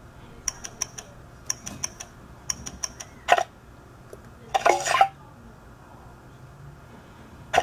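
Sound effects from an UNO-style computer card game: three quick runs of three short, clinky ticks, then two longer card-play sounds and one last short sound near the end.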